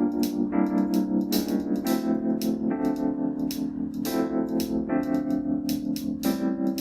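Electronic music played back through a Xiaomi Mi Bluetooth Speaker 2 in a sound test: sustained electric-piano chords that change about every second and a half, with regular hi-hat ticks over them and little bass.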